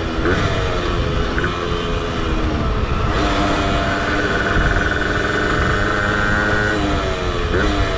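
Tuned two-stroke engine of a 1967 Zündapp moped with a 70cc Athena cylinder, running under way. Its revs sag gradually and then jump back up sharply a few times, with a steady high whine over the middle stretch and a dense low rumble of wind throughout.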